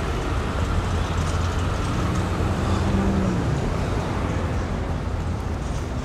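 Steady city street traffic noise, a low rumble of passing cars.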